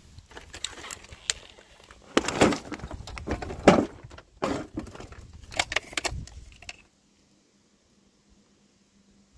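Irregular sharp clinks and rattles of scrap metal and car parts being disturbed, loudest between two and four seconds in. They stop about seven seconds in, and the rest is silence.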